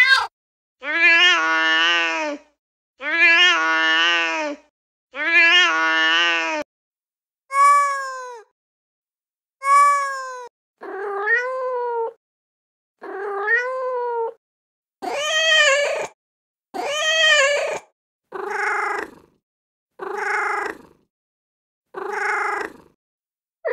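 Recorded cat meows played one at a time from a cat-sounds phone app: about twelve separate meows, each a second or so long, with silence between them. The same meow is repeated two or three times before a different one follows.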